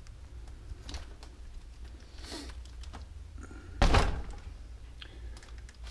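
RC rock crawler truck chassis set down on a tabletop: one loud thunk about four seconds in, with a few lighter handling clicks and knocks before it.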